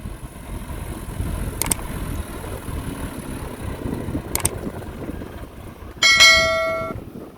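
Low outdoor rumble of wind and machinery with a couple of faint clicks, then about six seconds in a loud, bell-like metallic ring that fades and cuts off under a second later.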